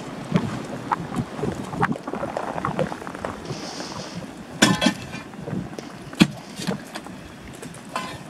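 Steady rushing noise of sulfur gas venting from the fumarole pipes, broken by scattered knocks and clinks of an iron bar and pick on rock and sulfur crust. A louder ringing clank comes about four and a half seconds in, and a sharp crack about a second and a half later.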